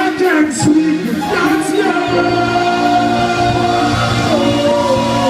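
Live reggae band music, with singing in the first couple of seconds, then held chords over a steady bass note.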